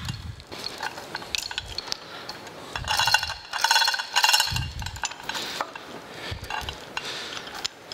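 Steel chain of a manual chain hoist clinking and rattling as it is handled while rigging a lift, with scattered metal clicks and knocks and a denser run of ringing chain clinks about three to four and a half seconds in.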